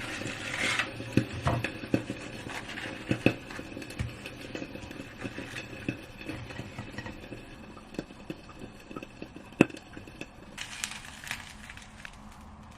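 Dishes and utensils being handled: scattered light clinks and knocks with a few short scraping or rustling bursts, one sharper knock a little over nine seconds in.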